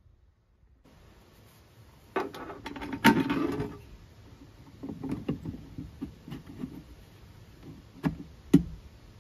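Hard plastic knocks, clatters and scrapes as a radio unit is handled and pressed into a cutout in a plastic case lid, loudest about three seconds in, with two sharp knocks near the end.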